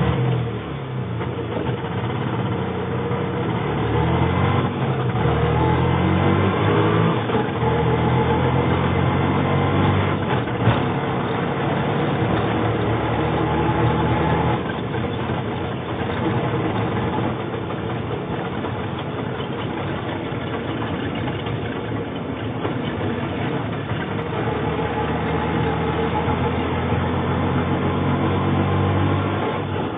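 Auto rickshaw engine running, its pitch climbing a few seconds in as it picks up speed, then settling to a steadier run before building again near the end. A single sharp knock comes about ten seconds in.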